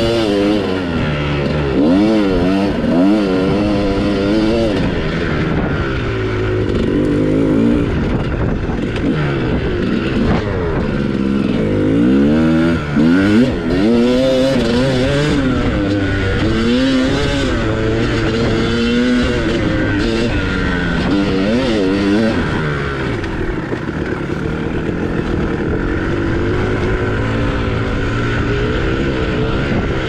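Single-cylinder two-stroke engine of a 2001 Kawasaki KX250 dirt bike running under load, its pitch rising and falling over and over as the throttle is opened and closed.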